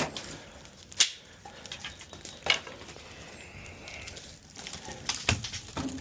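Burning pallet wood crackling in a brazier, with a few sharp pops: one about a second in, another about two and a half seconds in, and one near the end.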